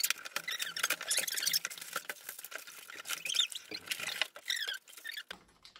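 Cardboard boxes being torn open and stiff plastic packaging crinkling and rustling as gingerbread house kits are unpacked, a busy run of quick crackles with a few short squeaks.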